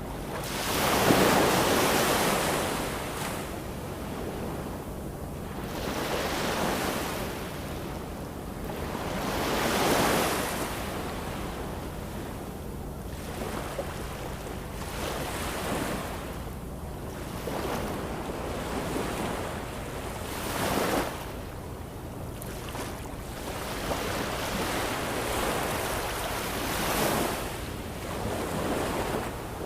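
Ocean waves breaking and washing in, a surge of surf every few seconds; the largest swells come about a second in and again about ten seconds in.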